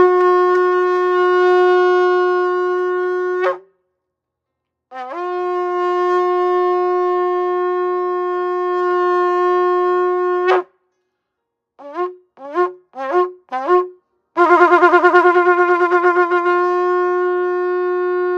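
A shofar blown in a series of calls: a long steady blast that ends about three and a half seconds in, a second long blast of about five and a half seconds, a quick run of short broken notes, then a final long blast that starts with a rapid wavering and settles into a steady note. Each blast scoops up into its pitch at the start.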